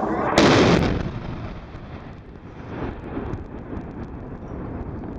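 A large explosion on a mountaintop: a loud sudden blast about half a second in, followed by a rumble that dies away over the next few seconds.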